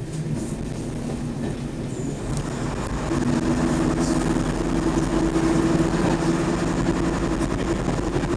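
Diesel multiple unit running along the line, heard from just behind the driver's cab: a steady diesel engine note over a continuous wheel-on-rail rumble. About three seconds in, the engine note grows louder and stronger and then holds steady.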